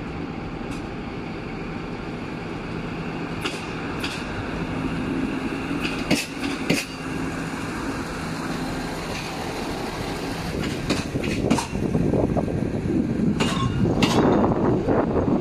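Duewag BR628 diesel multiple unit with its engine running in a steady drone. From about two-thirds of the way through, a rumble of wheels on track grows louder, with scattered sharp clicks.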